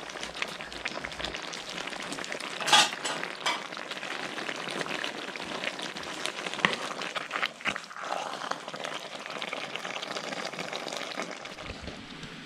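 Thick stew bubbling in a cast-iron Dutch oven: a steady crackle of small pops and spits, with a louder burst about three seconds in.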